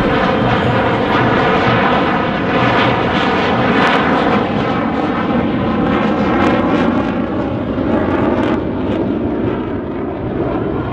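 Jet engine noise of a J-10 single-engine fighter flying past, loud and steady, easing off a little near the end.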